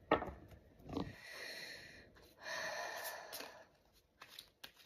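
A person breathing out audibly twice, a longer breathy exhale in the middle, followed near the end by a few light taps and clicks of cards being handled.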